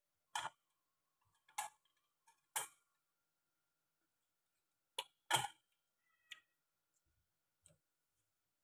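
Chopsticks clicking against a stainless steel pot: about seven short, sharp taps at uneven intervals, the loudest pair about five seconds in. A faint steady whine runs beneath them.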